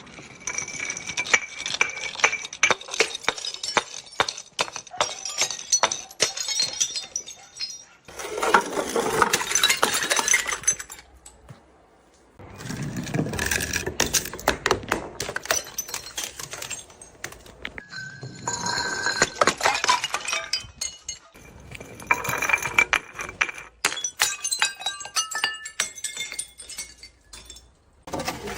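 Glass bottles shattering and their shards clinking and scattering, in several separate bouts of rapid crunching, tinkling impacts with short pauses between.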